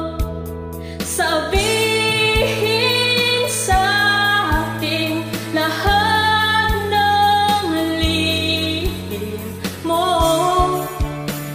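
A woman singing a pop ballad cover over a karaoke backing track with drum hits and sustained instrumental chords; the voice comes in about a second in, after a short instrumental stretch.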